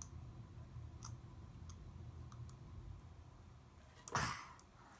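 A few faint, light clicks of plastic Play-Doh tools being handled, then a short, louder noisy sound about four seconds in.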